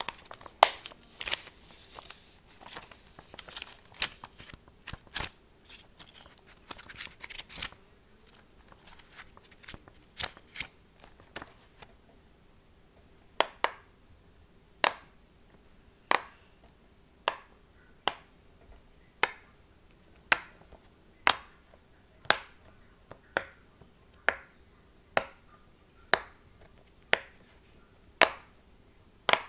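Fidget toys being clicked and popped by hand: a flurry of irregular taps and rustles at first, then, about halfway in, single sharp clicks at roughly one a second.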